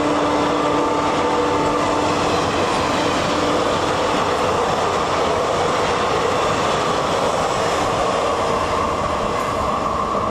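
Passenger coaches of an express train rushing past close by at speed: a loud, steady rush and rumble of wheels on the rails.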